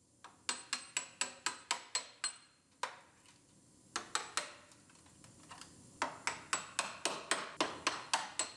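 Spot weld breaker being hammered into the seam of a car body panel, sharp metallic strikes about four a second in runs with short pauses, knocking the spot welds loose to separate the panel.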